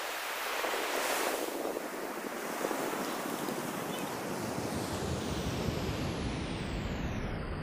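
Sea surf breaking on the shore in a steady rush, with wind buffeting the microphone; the low wind rumble grows stronger about five seconds in.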